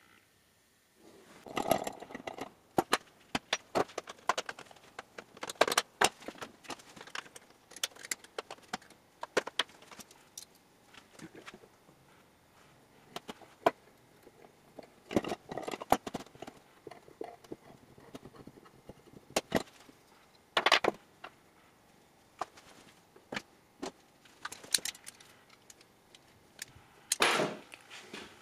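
Small brass fitting and hand tools clicking and clinking against a steel vise and workbench while a 1/4-20 tap is turned by hand, in irregular bursts with a few short scraping rasps.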